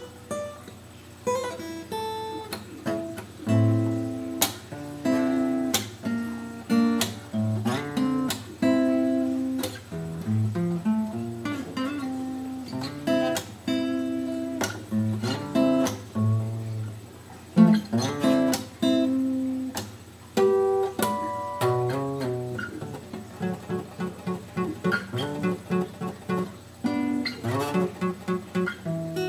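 Solo guitar improvising: plucked chords and single-note lines that ring and fade, turning to a quicker, evenly picked pattern in the last few seconds.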